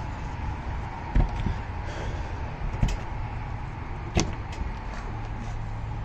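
Three sharp knocks, about a second and a half apart, from handling the RV's exterior storage compartment doors and latches, over a steady low hum.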